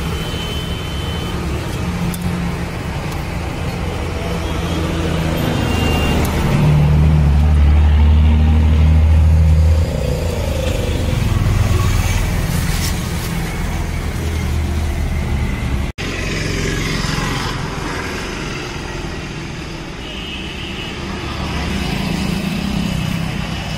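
Road traffic: a motor vehicle's engine running close by with a steady low hum, loudest about seven to ten seconds in.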